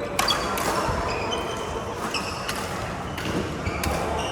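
Badminton rally: rackets striking the shuttlecock with sharp cracks several times, and sneakers squeaking on the court floor between shots.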